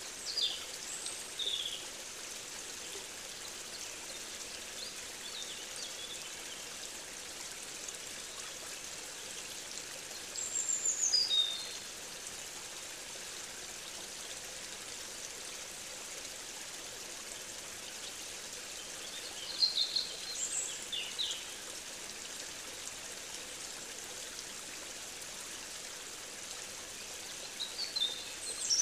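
Field recording of a stream running steadily, with a songbird giving short clusters of quick falling chirps about four times.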